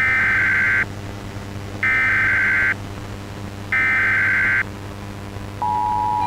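Emergency Alert System SAME header: three short bursts of warbling digital data tones, about two seconds apart, then a steady alert attention tone begins near the end, announcing a weather warning.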